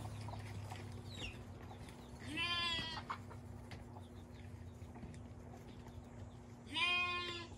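Baby goats bleating: two short, wavering bleats, the first about two seconds in and the second near the end.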